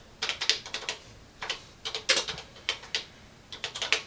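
Keys being typed on the TRS-80 Color Computer 2's keyboard: quick runs of clicking keystrokes with short pauses between them.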